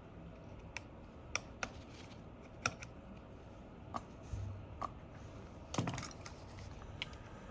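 Scattered small, sharp clicks and taps of hand repair tools working inside an opened iPhone XR, about eight of them spread irregularly over several seconds.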